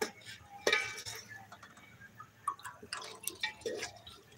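A spoon stirring a thick, wet masala in a metal pot: irregular wet squelches and clicks of the spoon against the pot.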